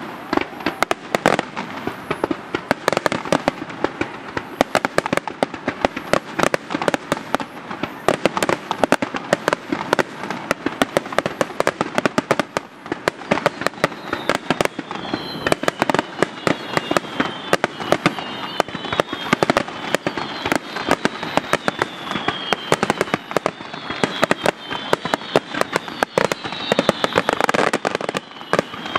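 Aerial fireworks bursting in a rapid, continuous barrage of bangs and crackles. From about halfway, repeated falling whistle tones sound over the bursts.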